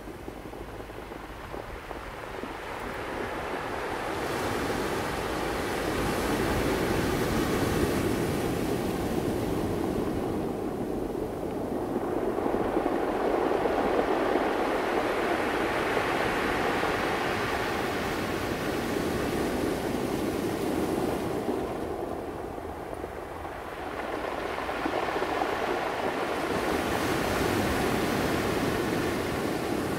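Ocean waves breaking and washing ashore in a steady rushing surf that swells and ebbs in long surges. The surf builds a few seconds in, eases for a couple of seconds about two-thirds of the way through, then rises again near the end.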